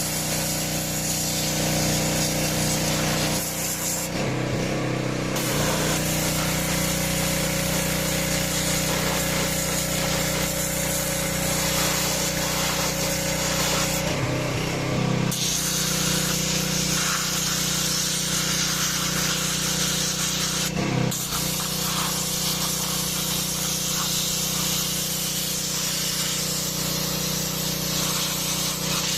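A gasoline pressure washer with a 6 HP engine runs steadily under the hiss of its high-pressure water jet. The spray cuts out briefly three times and the engine note shifts each time, before the spray starts again.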